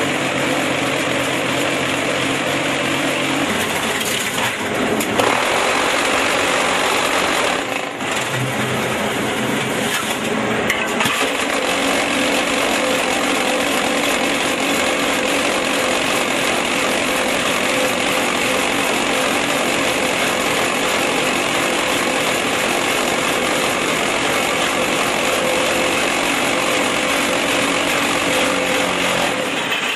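QT4-26 automatic concrete block making machine running: a loud, dense, steady mechanical noise from its electric motors and vibrating mould, with a faint steady hum.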